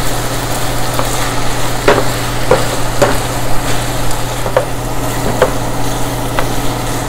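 Chili chicken sizzling in a frying pan while a wooden spatula stirs it, with repeated short knocks and scrapes of the spatula against the pan over a steady low hum.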